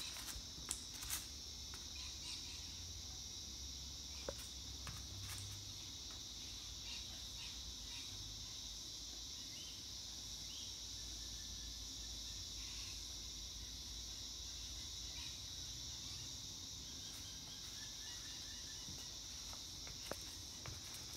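Steady high-pitched insect chorus, with a few faint taps, one about four seconds in and another near the end.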